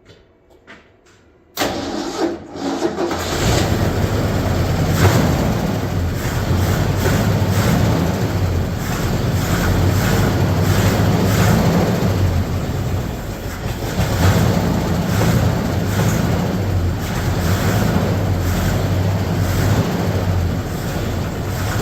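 Old Ford Bronco's carbureted engine starting after a rebuild: it is cranked about a second and a half in, catches within a couple of seconds and keeps running. This is its first real start after reassembly with a new timing chain cover, water pump and fuel pump.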